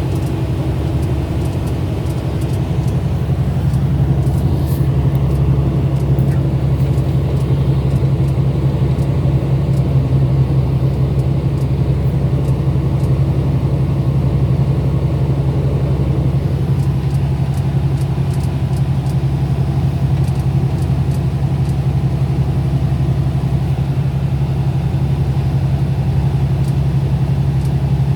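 A car driving, with a steady low engine hum and road rumble that grows a little louder about three seconds in.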